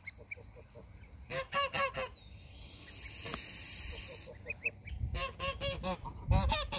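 Domestic geese honking in two quick runs of short calls, one about a second and a half in and another from about five seconds in to near the end, with a few faint high chirps in between.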